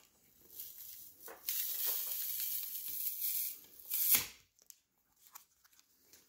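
Cured epoxy and carbon-fibre laminate on birch plywood being peeled off its contact-paper release sheet: a steady tearing sound from about half a second in to about three and a half seconds, then one short rip near four seconds as the panel comes free.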